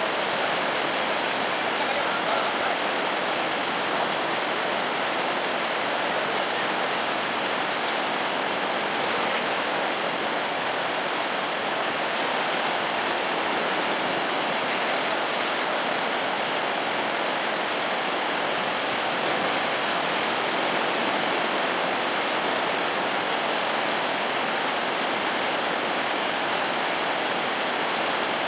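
Floodwater rushing steadily through breaches in an earthen road embankment, churning into whitewater as it pours across where the road has washed out.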